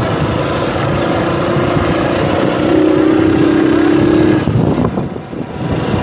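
Motorcycle engine running while riding along a bumpy dirt track, under heavy wind noise on the microphone; the sound dips briefly about five seconds in.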